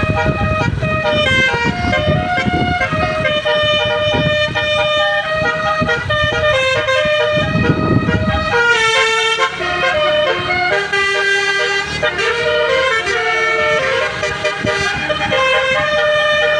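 Basuri 'telolet' musical bus horn playing a melody of several horn notes at once, stepping up and down in pitch. A low rumble runs underneath for the first half and stops about halfway through.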